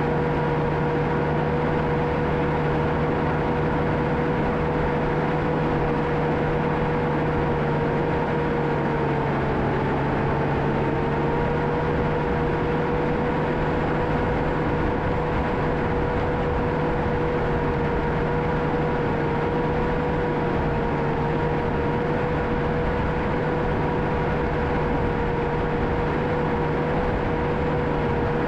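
John Deere 650K crawler dozer running steadily under load, a diesel rumble with a steady high whine on top that sags a little in pitch about nine seconds in.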